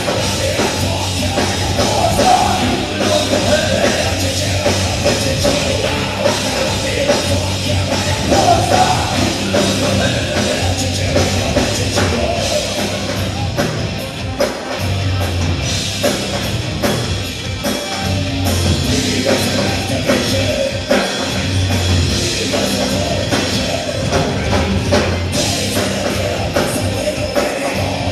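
A rock band playing live: distorted electric guitars, bass and drums, with a singer singing and yelling over them, unbroken throughout.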